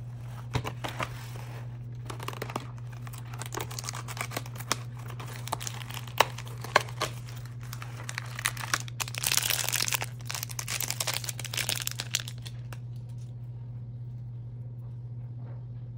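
Crinkling and tearing of a foil blind-bag wrapper being opened by hand, with taps and clicks of the cardboard box. The crinkling is loudest from about nine to twelve seconds in and stops soon after, leaving only a low steady hum.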